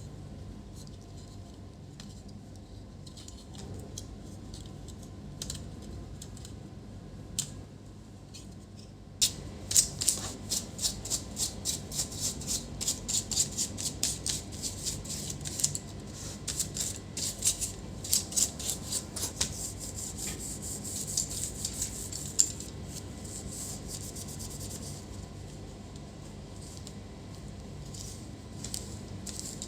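Rapid, dense scraping and rubbing strokes on small laptop parts being cleaned, starting abruptly about nine seconds in and thinning out to scattered light clicks near the end.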